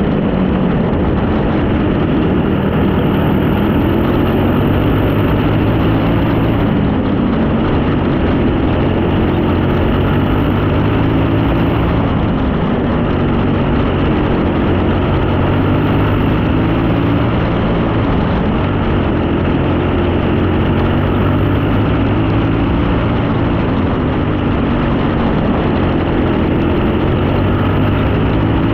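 Junior sprint car's engine at racing speed, heard onboard, its pitch rising and falling every few seconds as the driver lifts for the turns and accelerates down the straights.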